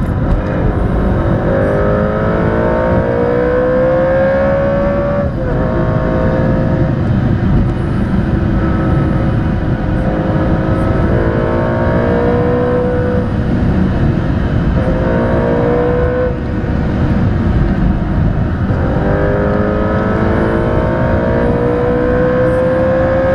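Aston Martin Vantage engine heard from inside the cabin, pulling hard with its note climbing steadily and dropping sharply at each upshift, about five climbs in all, over a loud steady road and tyre rumble.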